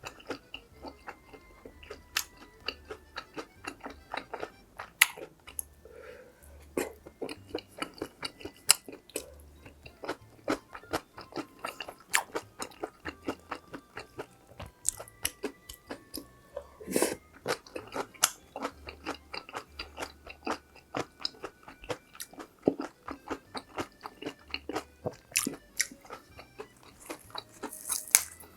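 Close-miked chewing and biting of cheese dakgalbi (spicy stir-fried chicken with cabbage), a steady run of sharp wet mouth clicks and smacks with occasional louder crunches.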